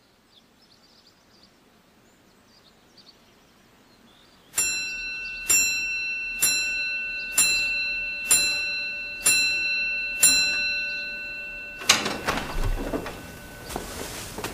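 A chiming clock strikes seven times, about once a second, each stroke ringing on into the next. Near the end a sharp click sounds as double doors open, followed by footsteps and rustling as people come in.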